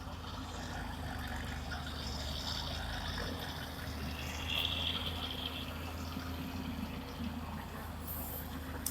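Long-boom excavator's diesel engine running steadily, with water splashing and pouring over it, strongest about halfway through.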